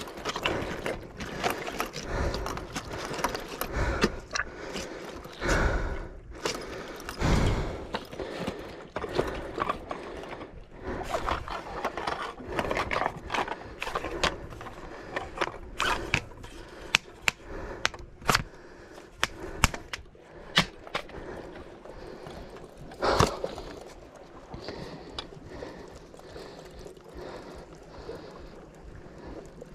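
Irregular scrapes, clicks and knocks of boots and fishing gear on rough rock: a fishing rod, spinning reel and gaff being handled while the angler stands on the cliff edge, with a few low rumbles in the first seconds.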